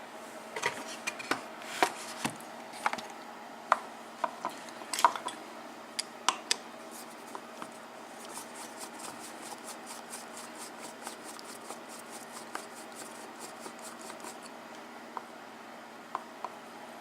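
Small metallic clicks and taps from handling a Kwikset pin-tumbler lock cylinder and its picking tools, strongest in the first six seconds, then a run of faint, fast, even ticks at about five a second.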